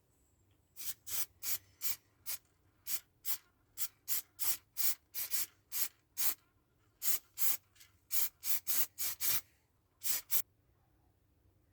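About two dozen short, quick rubbing or scraping strokes, two to three a second, with brief pauses, stopping about ten and a half seconds in.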